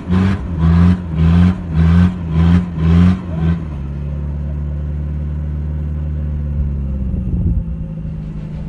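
Toyota LJ70 Land Cruiser engine revving in short repeated bursts, about one and a half a second, under load crawling through a deep rocky rut. About halfway through, it settles into a steady, even run.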